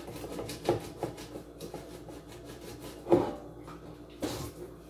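Pot scrubber rubbing at a roasting pan in short rasping strokes, working off a spot of baked-on turkey residue the dishwasher left behind. A louder knock comes about three seconds in, with another scrape-and-knock a second later.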